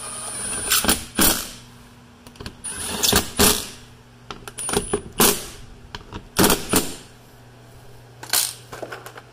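Socket ratchet on an extension driving the bolts of the plastic under-engine splash shield: about eight short spells of metallic ratcheting, several in quick pairs, with pauses between.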